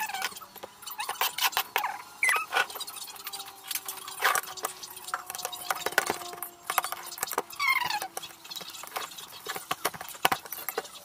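Metal fork clinking and scraping against a ceramic plate while mashing peeled bananas, in quick, irregular clicks.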